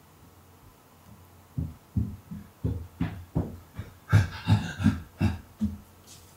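Footsteps thudding on the floor, about three a second, starting after a second and a half of quiet and getting louder towards the middle.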